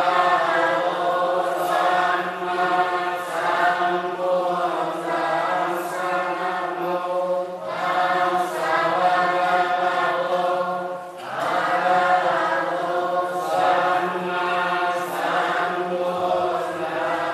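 Theravada Buddhist monks chanting together in a steady, low-pitched drone, in long phrases with short breaks for breath about eight and eleven seconds in.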